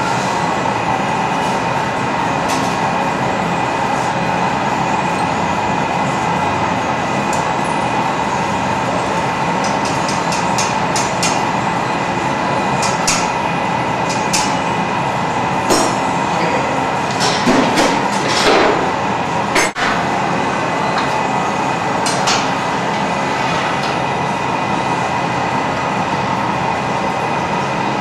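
Steady rushing noise of a glass studio's gas-fired furnace and burners running, with scattered short clicks and knocks in the middle stretch.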